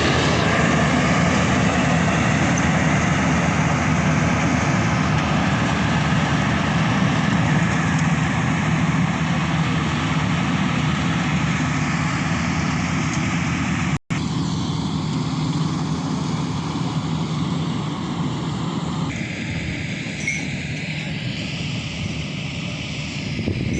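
Combine harvester running steadily, engine and machinery with a constant low hum. It cuts out abruptly for an instant about halfway through, then carries on a little quieter.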